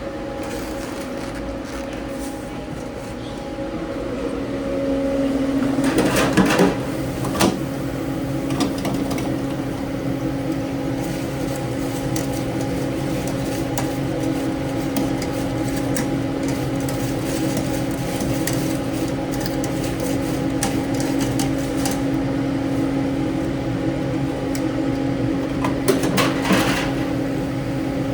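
A steady machine hum that grows louder about four seconds in, with a few short clatters around six to seven seconds and again near the end.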